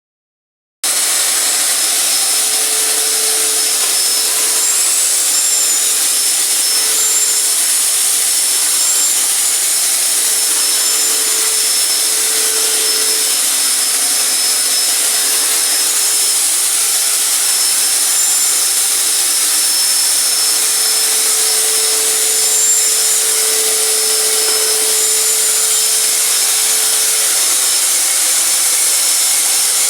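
Electrolux Flex 1,400 W wet-and-dry vacuum cleaner running steadily: an even, loud rushing with a faint high whistle, starting abruptly just under a second in.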